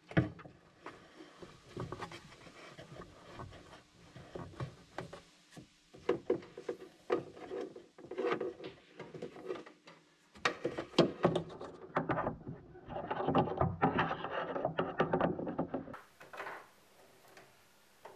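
Handling noises from fitting a submersible washdown pump and its hose into a mill's coolant tank: irregular knocks and clunks of plastic against the tank, with a longer stretch of rubbing and scraping in the second half.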